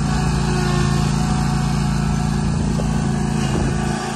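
Commercial walk-behind lawn mower's engine running at a steady speed as the mower is driven across pavement with its operator on the sulky, dipping slightly near the end.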